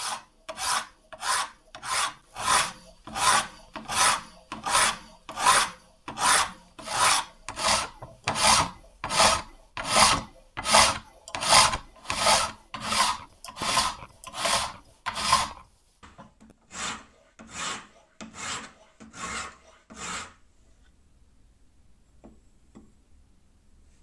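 Hand file in a bevel-filing jig rasping across a steel knife blade in steady back-and-forth strokes, about one and a half a second. The strokes turn lighter after about sixteen seconds and stop about twenty seconds in.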